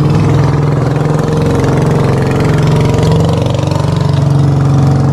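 An engine running loud and close at a steady speed, its pitch holding almost constant.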